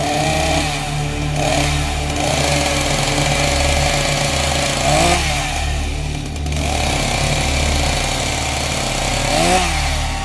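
Small two-stroke engine, most likely a chainsaw, running steadily at a fast idle and revved up briefly twice, about five seconds in and near the end.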